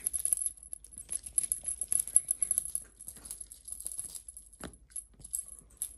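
A feather wand cat toy being shaken and flicked, giving irregular high rattling and crinkling clicks that thin out in the second half.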